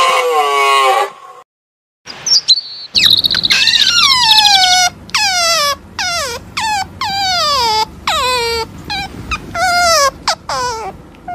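Otters giving a long run of high, squealing calls, each sliding steeply down in pitch, a dozen or more at about one and a half a second. Before them, a separate pitched animal call ends about a second in.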